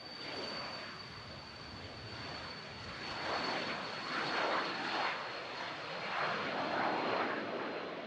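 Cessna 525 CitationJet's twin Williams FJ44 turbofans at takeoff power on the takeoff roll: a high, steady fan whine over a rushing jet roar. The roar grows louder about three seconds in as the jet comes closer.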